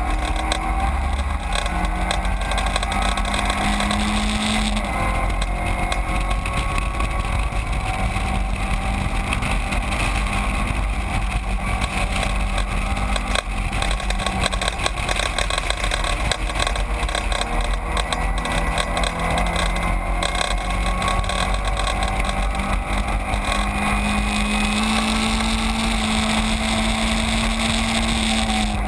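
Caterham 7 racing car's engine running hard at fairly steady revs, heard from its open cockpit with wind noise over it. The pitch sags slowly over the first few seconds and climbs again near the end.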